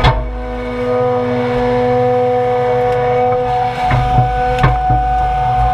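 John Deere 200 excavator working, its diesel engine running under a steady, high hydraulic whine, with a sharp knock at the start and a few more knocks later on as the bucket and thumb handle brush.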